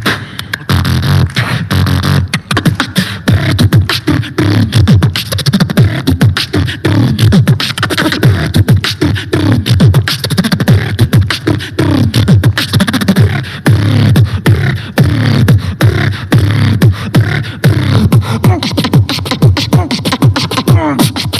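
Solo beatboxing into a handheld microphone: a dense stream of rapid mouth-made kick and snare hits with repeated falling bass sweeps between them, and some wavering pitched sounds near the end while the hands are cupped over the mouth.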